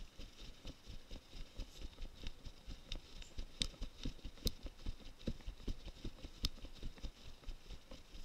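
Footsteps walking over dry grass, with the knocking and rubbing of a body-worn camera: quick faint thumps and a few sharp clicks.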